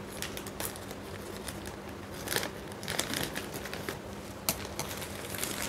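Thin plastic wrapper crinkling and rustling as it is cut with scissors and pulled open, with a few sharper snips and clicks scattered through it.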